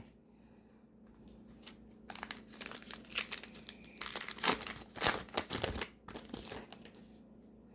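Irregular crinkling and tearing of a trading-card pack wrapper being ripped open and crumpled.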